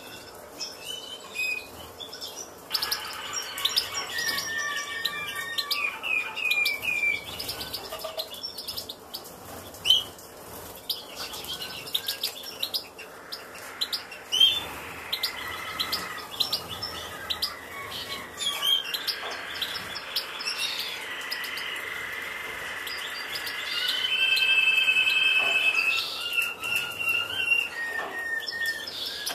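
Caged finches chirping and singing, with many short chirps and warbling trills overlapping. A steady held high note, the loudest sound, comes near the end.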